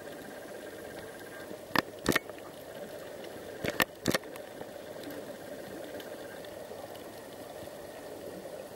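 Underwater ambience picked up through a camera's waterproof housing: a steady low hiss, with several sharp clicks about two and four seconds in.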